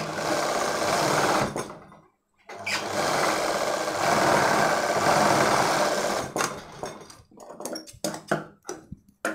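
Sewing machine stitching through fabric in two runs: about a second and a half, a brief stop, then about four seconds more. It ends in a few short stitch bursts and clicks as the fabric is adjusted under the foot.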